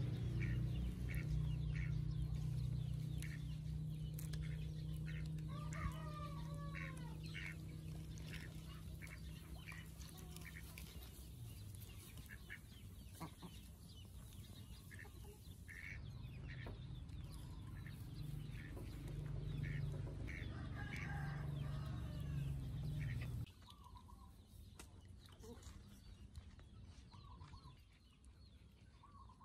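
Chickens clucking in the background, with short calls scattered through. Under them runs a steady low rumble that cuts off abruptly near the end.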